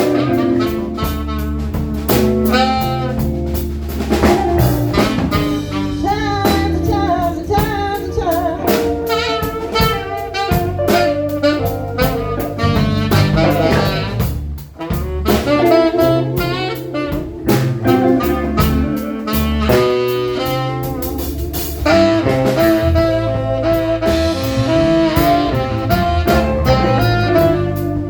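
Blues band playing an instrumental passage, a lead melody over bass and drums.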